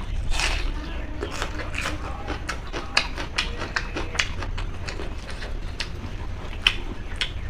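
Close-miked eating sounds: wet chewing and lip smacks, many irregular clicks several times a second, over a low hum.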